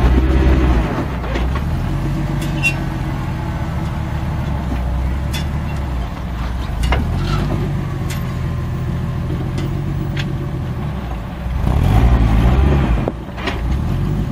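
Jeep Wrangler engine running at low revs while crawling over rocks towing a trailer, revving up briefly near the start and again about twelve seconds in. Scattered clicks and knocks from the tyres and rig working over the rocks.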